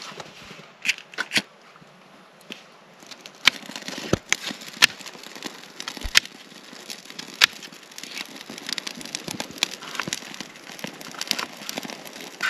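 Birch bark crackling as it catches fire in a Hobo wood-burning camp stove: scattered sharp cracks, sparse at first and coming thicker after about three seconds.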